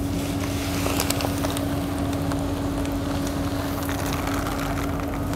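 Factory machinery humming steadily with one constant tone, with a hiss and scattered light ticks from polythene granules pouring out of a sack into a hopper bowl.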